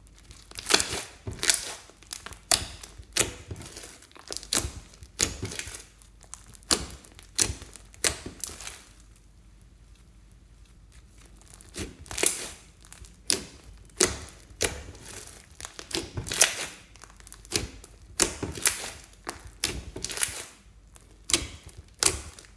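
Glitter-mixed slime being kneaded and squeezed by hand, giving sharp wet crackles and pops in irregular bursts about a second apart, with a short quieter pause about halfway through.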